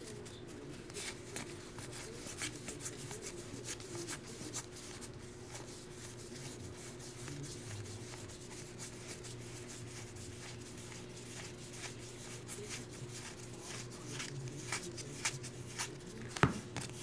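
Stack of cardboard baseball trading cards being flipped through by hand, a run of soft papery clicks and slides over a low steady hum, with one sharper snap near the end.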